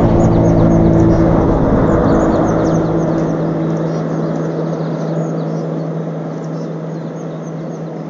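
A motor engine humming steadily and slowly fading away.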